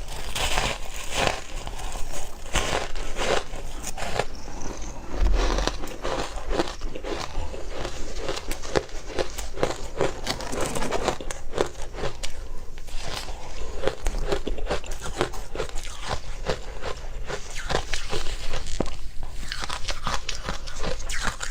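Close-miked biting and chewing of frozen matcha ice: a dense run of crisp crunches and crackles as it is bitten and chewed.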